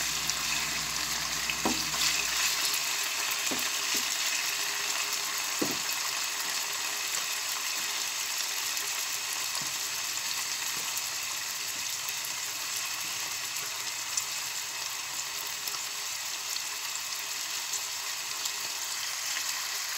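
Pieces of fatty meat sizzling steadily in olive oil in a nonstick pan, the fat being rendered first. A few knocks of a wooden spatula against the pan come in the first several seconds of stirring, then the frying goes on alone.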